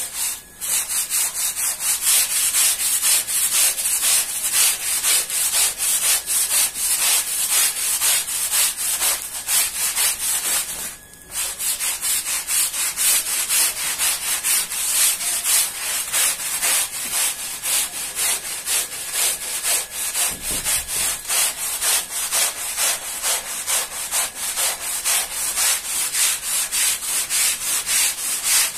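Scrubbing of a wet, soapy rug in quick, even back-and-forth strokes, several a second. It starts with a hand-held pad and, after a short break about eleven seconds in, continues with a stiff-bristled long-handled scrub brush.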